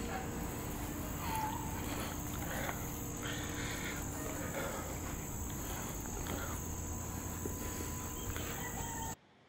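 Steady high-pitched insect chorus, a constant buzz, with a few brief faint chirps and rustles over it; it cuts off suddenly near the end.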